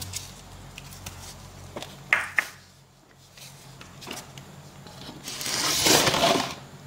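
A stainless steel bowl full of sliced bamboo shoots dragged across a wooden tabletop: a rough scraping rush about five seconds in that lasts about a second and a half. A few light knocks come before it.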